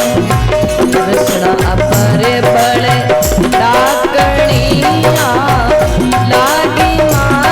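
Rajasthani folk bhajan music: hand drums keep a steady rhythm under a gliding melody line and a held drone note.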